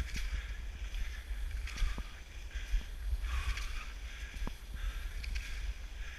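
Cross-country skis swishing along groomed snow tracks in a regular stride rhythm, about one swish every second and a half, with a couple of sharp clicks as the poles plant. A steady low rumble runs underneath.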